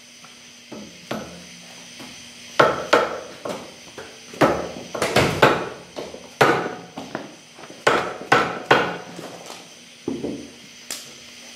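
Orange mallet striking the steel caliper wedge to drive it back into place between the brake caliper and steering knuckle of a Dana 60 front axle: some twenty sharp blows in quick groups of two to five, with short pauses between groups.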